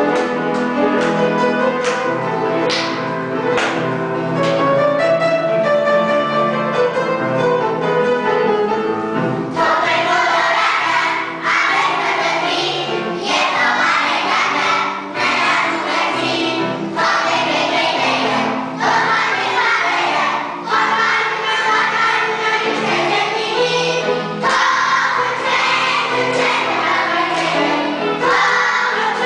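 Upright piano playing a lively dance tune, joined about ten seconds in by a group of young children singing along.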